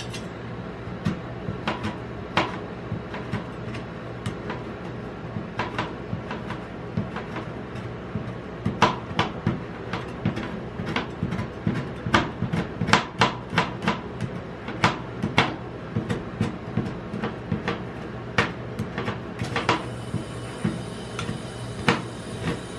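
Steel spatula blades chopping on a steel rolled-ice-cream cold plate: irregular sharp metal taps as chocolate bar pieces are cut into the cream base, sparse at first and then coming fast and loud from about nine seconds in before thinning out again. A steady low hum runs underneath.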